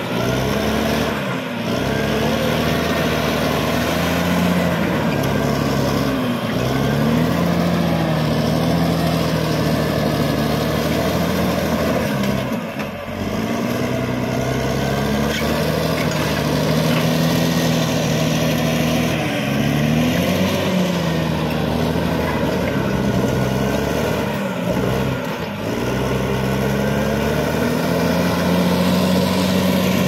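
Caterpillar D6R XL crawler bulldozer's diesel engine running under load as it pushes rocky soil. The engine note dips and recovers several times, about every five or six seconds.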